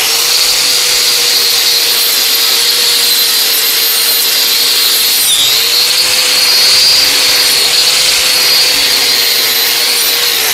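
4-inch angle grinder with a wire brush running at full speed, scrubbing caked grass and rust off a steel mower blade, with a steady high whine. Its pitch sags briefly about halfway through, and it begins to wind down right at the end.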